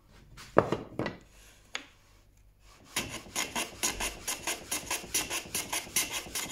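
Record T5 hand plane run on its side along a wooden shooting board, trimming the end grain of a plywood piece. Two knocks come about half a second and a second in. From about three seconds there is a fast, even run of short shaving strokes, about three a second.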